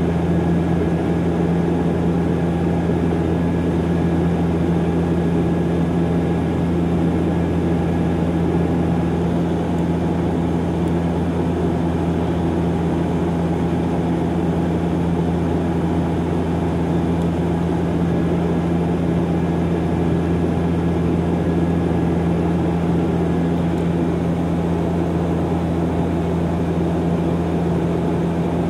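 Cabin drone of a DHC-8-Q400 in flight, from a window seat beside the propeller: its Pratt & Whitney PW150A turboprops and six-blade propellers give a steady low hum with a constant tone, over steady rushing air noise.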